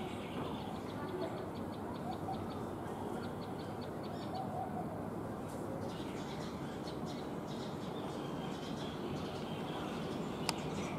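Steady outdoor background noise with birds chirping in quick runs of short, high notes, and one sharp click near the end.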